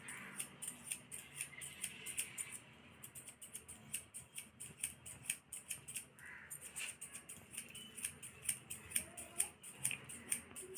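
Barber's steel hair-cutting scissors snipping over a comb, a fast, even run of crisp snips several a second, broken by two short pauses.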